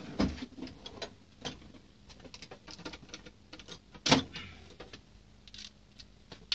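Handling noises from tools being picked up and turned over: scattered light clicks and rustles, with one sharper knock about four seconds in.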